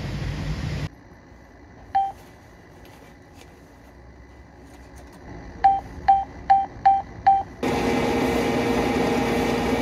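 Bank ATM keypad beeping as buttons are pressed: one beep, then after a pause five quick beeps about two and a half a second. Right after them the machine starts a steady electric hum as it processes the withdrawal. Brief wind noise is heard at the very start.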